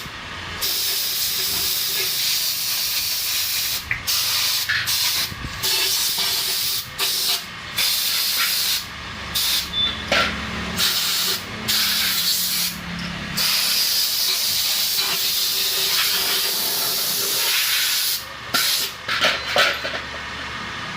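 A high-pressure spray gun hissing loudly as it is worked over a motorcycle, cutting off for a moment and starting again many times as the trigger is let go and squeezed.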